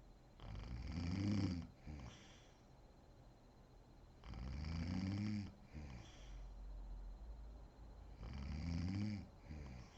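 A sleeping woman snoring: three loud, rattling snores about four seconds apart, each followed by a shorter, quieter sound.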